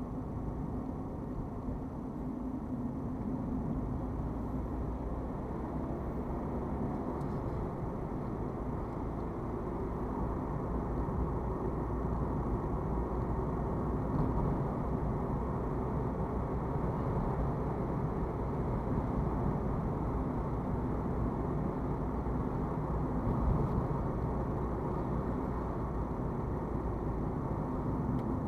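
Car cabin noise from driving at city speed: a steady rumble of tyres and engine, heard from inside the car, growing a little louder about ten seconds in as the car speeds up.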